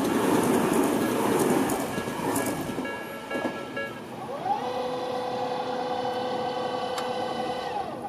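Electric commuter train passing close by with rumble and wheel clatter, fading away over the first three seconds. About four seconds in, a train horn sounds one steady note for some three and a half seconds, sliding up in pitch as it starts and dropping as it stops.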